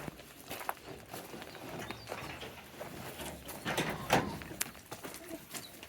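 Goats' hooves stepping on the ground and rustling through grass, with scattered clicks and a louder rustle about four seconds in.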